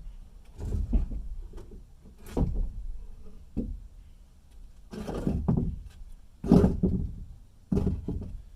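A series of about six knocks and clunks a second or so apart, like objects being handled and set down.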